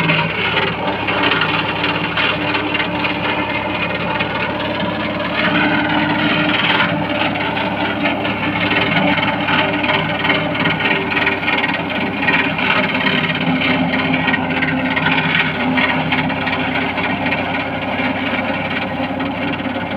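Mahindra OJA compact tractor's diesel engine running steadily under load, driving a tractor-mounted CEL MAK mower through tall grass. The mower's cutting and rattle make a continuous noisy whir over the engine note.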